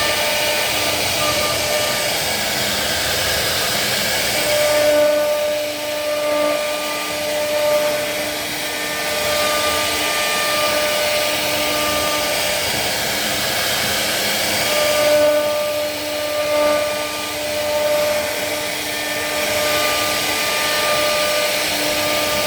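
CNC wood router spindle running with a steady whine while cutting wood. About five seconds in, and again about fifteen seconds in, the hissy cutting noise eases for a few seconds and a clearer tone stands out.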